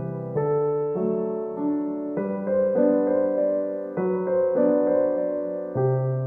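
Background music: a soft piano or electric piano melody over sustained chords, the notes changing about every half second.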